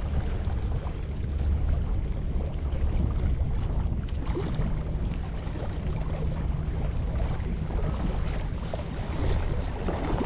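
Steady wind buffeting the microphone, a low rumble, with small waves lapping against the rocky shoreline.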